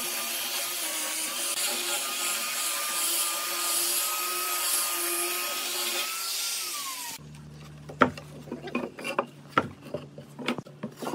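Angle grinder with a sanding disc sanding a wooden panel: a steady motor whine with the hiss of the abrasive on wood. About six and a half seconds in it is switched off and its pitch falls as it spins down, then cuts off; after that come a series of sharp wooden knocks and clunks as the panel is handled on the bench.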